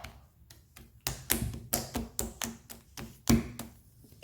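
Slime being worked by hand, giving a quick run of about a dozen clicks and pops, roughly five a second, the loudest near the end.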